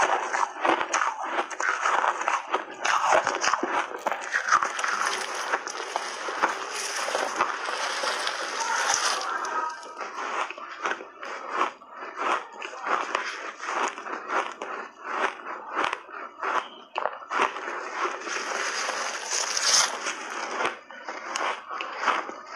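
Close-miked biting and chewing of crunchy refrozen blueberry shaved ice, big mouthfuls crushed between the teeth in rapid, irregular crunches.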